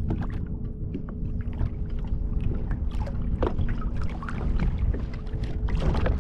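Low wind rumble on the microphone and water around a fishing kayak, over a faint steady hum, with small clicks and rustles of fishing line and tackle being handled, busier near the end.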